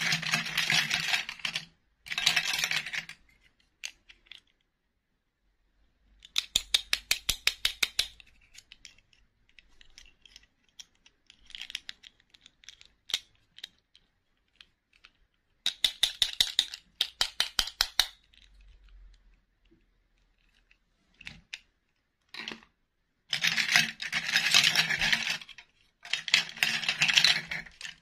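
Small plastic princess dolls and their clip-on plastic dresses clicking and rustling as hands rummage through them in a bowl. The sound comes in bursts: quick runs of clicks, and longer spells of rustling.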